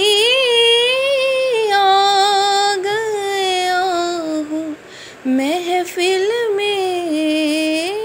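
A high solo voice singing a naat in Urdu, drawing out long held notes that waver and bend, with a short breath about halfway through.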